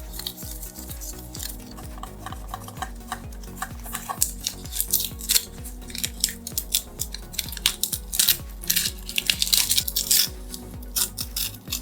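Background music, with a quick, uneven run of sharp clicks and scrapes from small hand tools working on a diecast model car. The clicking starts about four seconds in.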